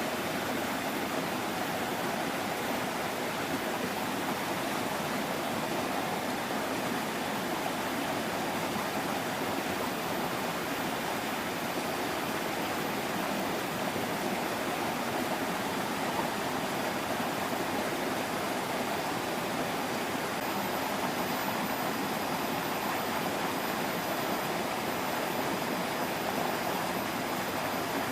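Steady rush of flowing stream water, an even noise that does not change.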